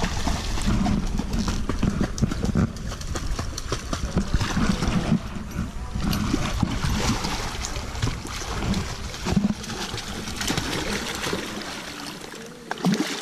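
Water splashing and churning in uneven surges as a dog and a hooked redfish thrash in the shallows at the bank's edge, over a low rumble on the microphone that drops away near the end.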